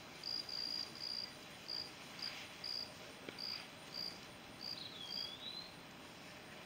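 Faint crickets chirping outdoors: short high chirps at one pitch, repeating about once or twice a second, with a single whistled note that dips and then rises about five seconds in.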